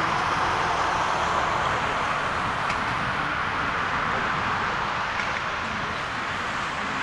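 Boeing 747-400 jetliner's four turbofan engines at takeoff thrust during the takeoff roll: a steady, even jet engine noise.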